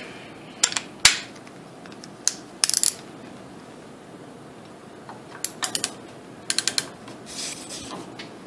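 Torque wrench ratchet clicking in short runs of four or five quick clicks, with a few single metal clicks and knocks, as it is worked to back off an AR-15 barrel nut.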